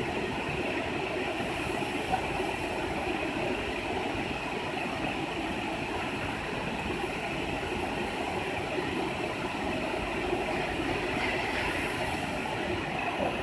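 Large CNC router running, a steady, unbroken noisy whir.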